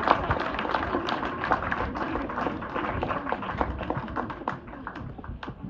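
Scattered applause from an audience, dying down near the end, with children's voices chattering underneath.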